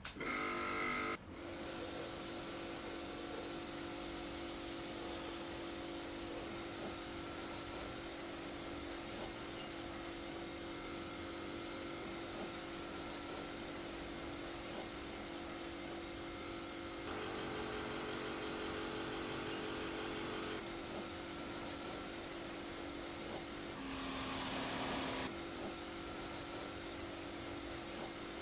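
Kärcher electric home pressure washer running: a steady motor-and-pump whine under the high hiss of the water jet. The whine shifts in pitch a few times, dropping briefly once near the end.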